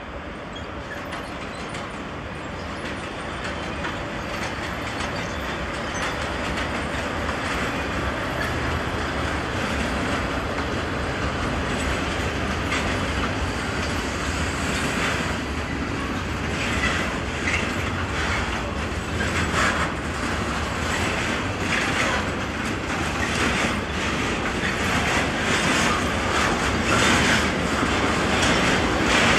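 Freight train of intermodal wagons, hauled by electric locomotives, rolling past; the rumble grows steadily louder. From about halfway the wheels clatter rhythmically over rail joints and points.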